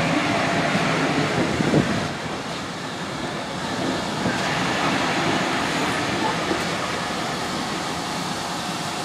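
Train of GWR passenger carriages headed by 41XX tank engine 4144 running along the platform, a steady noise of wheels on rail with one louder knock just under two seconds in.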